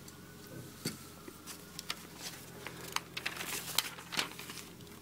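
Light clicks and taps of plastic LEGO pieces being handled, then the rustle and flap of a paper instruction booklet being picked up and opened. The clicks come more thickly in the second half.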